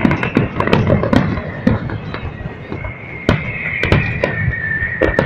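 Fireworks display: a quick, irregular run of sharp bangs and crackles, joined about three seconds in by a steady high whistle that lasts to the end.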